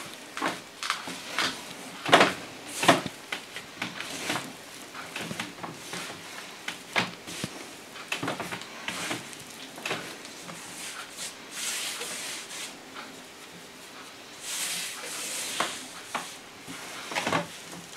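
Hands kneading a large mass of soft yeast dough on a floured oilcloth table: irregular soft thuds, slaps and rustles as the dough is folded over and pressed down.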